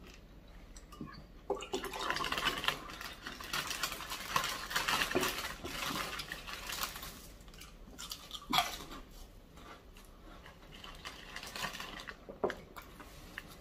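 Spoon scraping, stirring and clinking in a bowl of meatball soup, busy for several seconds, then a single sharper clink followed by a few lighter ones.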